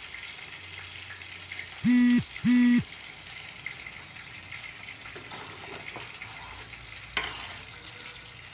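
Two short, loud electronic beeps about half a second apart, some two seconds in, over the steady low hiss of a pot of sambar left simmering. Faint spoon ticks follow as spice is stirred in a steel ladle, with a light metal clink near the end.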